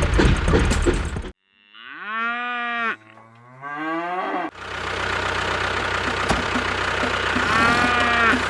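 A running motor with clatter that cuts off abruptly, then a cow mooing twice, the second moo rising in pitch. The motor and clatter then resume steadily, with a fainter moo near the end.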